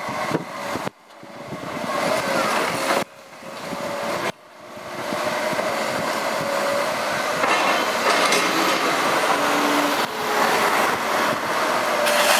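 Liebherr crawler excavator working brick demolition rubble: engine and hydraulics running with a wavering high whine, over the grinding and clatter of bricks as the bucket digs. The sound drops out abruptly and swells back several times in the first few seconds.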